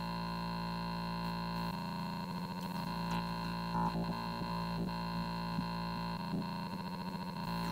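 Noise-music track: a fairly quiet, steady electronic drone of many held, buzzing tones stacked together, broken twice by stretches of stuttering, glitchy flicker.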